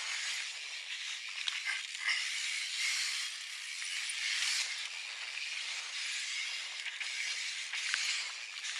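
Mountain bike tyres rolling fast over dry, loose dirt and gravel, a steady gritty hiss that swells and fades with the terrain, with a few sharp clicks of stones and bike rattle.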